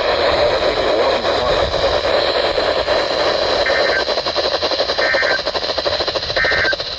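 Loud, steady static from a weather radio receiver on a weak, noisy signal, with a thin high whine through it. Three short beeps come about a second and a half apart in the second half.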